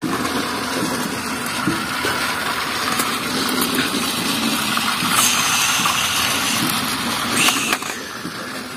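Battery-powered toy trains running on circular plastic track: a steady whir of small electric motors, with occasional clicks as the wheels pass over the track.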